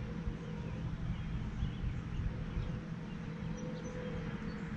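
Outdoor ambience: several faint, short bird chirps over a steady low rumble and a faint hum.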